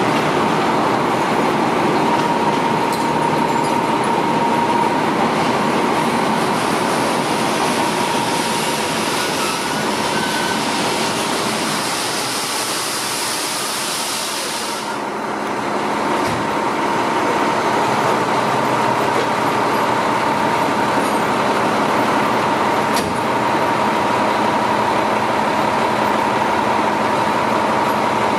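Fire engine's diesel engine running in the firehouse bay, a loud steady mechanical noise with a steady whine in it. A high hiss rides over it for several seconds and cuts off suddenly about halfway through.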